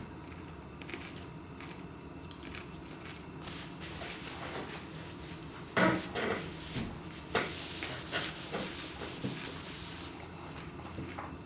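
Crisps and their packet being handled, crinkling and crackling, with a sharp click about six seconds in and a longer run of crackling over the following few seconds.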